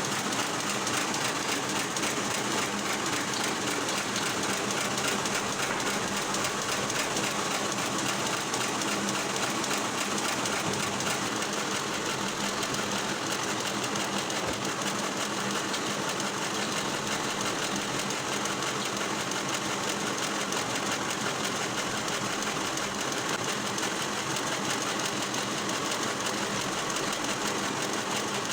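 Log-processing machinery running steadily: an even, fast mechanical clatter over a low hum.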